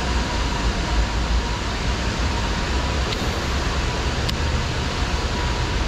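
Steady road traffic noise, a low rumble under an even hiss, with a faint steady whine. A single sharp click comes about four seconds in.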